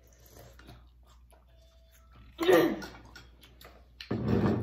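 Quiet table sounds with light clicks of spoons and forks on bowls, then two short, loud vocal outbursts: one about halfway through and one near the end.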